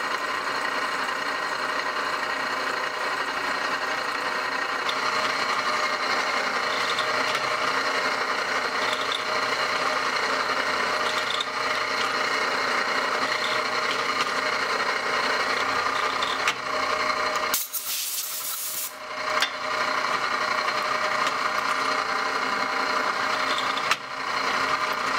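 Drill press running as a twist bit cuts into a thick block of 1060 carbon steel, peeling off long curls of swarf: a steady machine hum over a continuous cutting noise. The sound breaks off briefly about three-quarters of the way through, then resumes.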